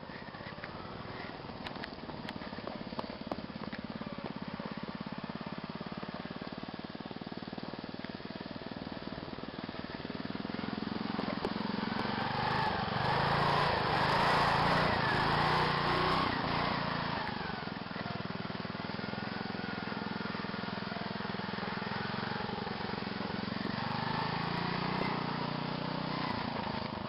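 Modified riding lawn mower engine running hard under load on a dirt trail, its pitch wavering with the throttle. It gets louder from about a third of the way in and is loudest around the middle, as a mower climbs a steep dirt hill close by, then settles back to a steady run.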